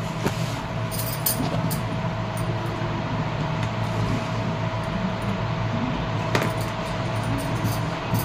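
A steady low hum throughout, under light handling of fabric and a measuring tape on a cutting table, with bangles clinking sharply a few times.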